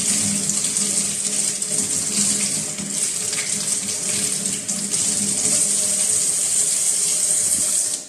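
Tap water running steadily into a sink as oregano leaves are rinsed under it, shut off abruptly at the very end.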